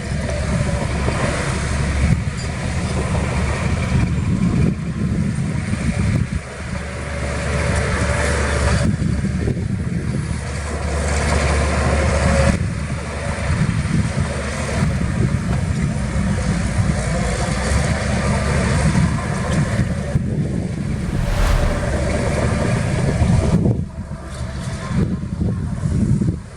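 Heavy diesel engine of earthmoving machinery running hard, rising and falling with load as it works the soil.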